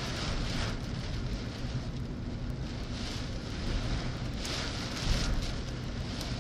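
Rain and road noise inside a moving car: a steady low rumble with a hiss from rain on the windscreen and tyres on the wet road, the hiss swelling and fading several times.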